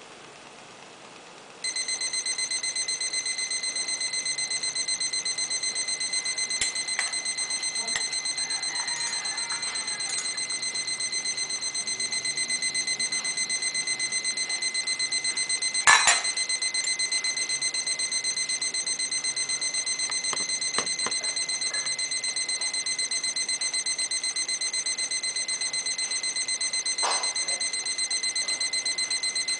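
Digital probe thermometer's target-temperature alarm beeping rapidly and continuously, starting about two seconds in: the water has reached the 100 °C set point. A single sharp knock is heard about halfway through.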